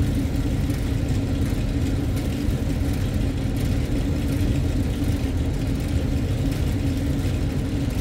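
Steady low mechanical drone of rooftop HVAC equipment running, with an even hum and no separate knocks or clicks.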